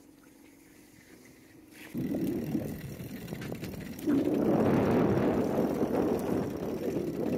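Wind rushing and buffeting over the microphone on a sailing yacht under way. After a quiet start with a faint low hum, the rushing comes in suddenly about two seconds in and grows louder about four seconds in.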